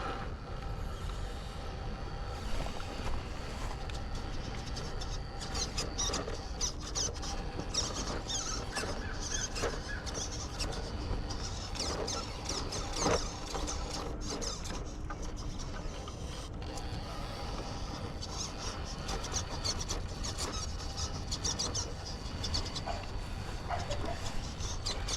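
A radio-controlled rock crawler crawling over rock: its electric motor and drivetrain whine in short squeaky spells, and its tires and chassis click and scrape on the stone. A steady low rumble runs underneath.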